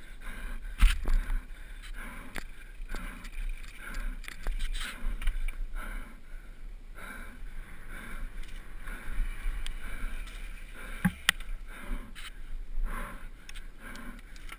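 Mountain bike ridden fast down a rough dirt singletrack: tyre noise, rattling and chain slap, with sharp knocks as the bike hits bumps, the loudest about a second in, over a low wind rumble on the camera microphone.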